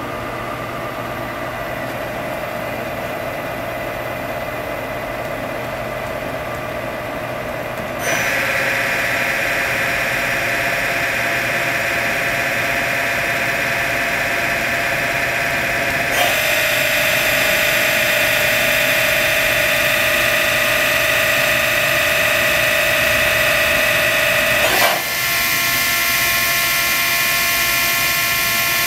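Fanuc Alpha T10A drill-tap center's spindle running with no tool, a steady machine whine. It steps up to a new, louder speed about 8 s and again about 16 s in, and changes again near 25 s.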